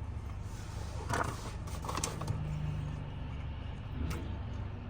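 Steady low hum of a car's cabin, with a few short crunching sounds of someone biting into and chewing a fried chicken sandwich, about one, two and four seconds in.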